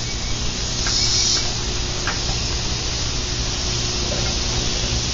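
Steady hissing background noise with a low hum underneath, and a brief rustle about a second in.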